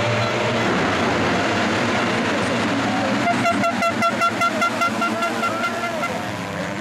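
A full field of MX2 motocross bikes revving hard as they launch from the start gate and race into the first turn. A pitched toot repeats rapidly, about four to five times a second, over the engines from about three seconds in for nearly three seconds.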